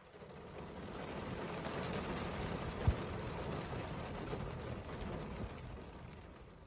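Rain falling, a steady hiss that fades in and fades back out, with one sharp knock about three seconds in.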